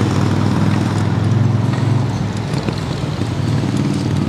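Steady low rumble of riding a cargo bike along a bike path: tyre and road noise mixed with wind on the microphone.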